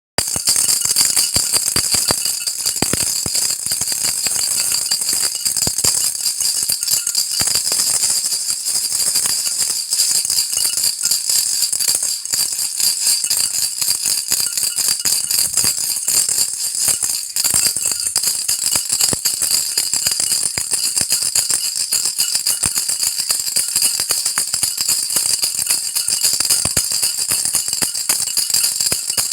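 Baby rattle shaken continuously and quickly, a dense bright clatter of beads with no real pause.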